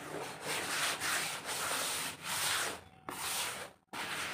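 Hands digging through and crumbling dry roasted dirt in a plastic tub: repeated swells of gritty rustling and crumbling, each about a second long. The sound cuts out briefly just under four seconds in, then resumes.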